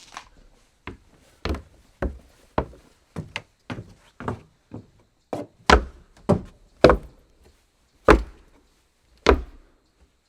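Footsteps on wooden boards: a run of hollow knocking steps at an uneven pace, some landing harder than others.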